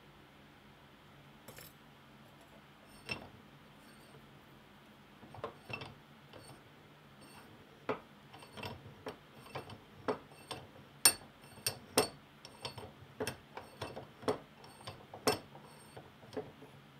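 Irregular sharp metallic clinks and taps of small steel parts being handled in a bench vise. They come sparsely at first and then more often, about two a second, through the second half.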